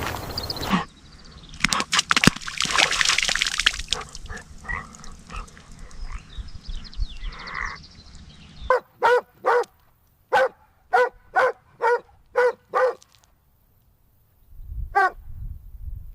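A small dog barking: a quick run of about ten short, sharp barks, then a pause and a single bark near the end. Before the barking there is a stretch of scuffling and rustling.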